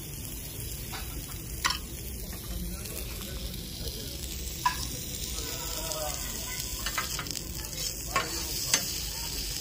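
Shrimp, mushrooms and vegetables sizzling on a hot teppanyaki griddle, growing louder about halfway through, with a few sharp clicks of metal spatulas against the steel plate.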